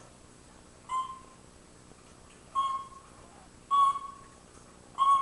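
African grey parrot giving four short whistled calls, a second or so apart, each a brief rough onset followed by a short held note.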